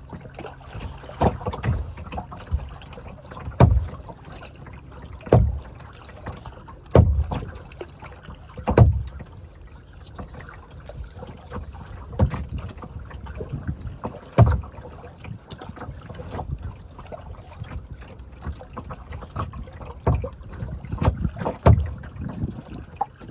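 Paddle strokes from a small paddled boat: a paddle dipping and splashing in the water every second or two, with a lull in the middle.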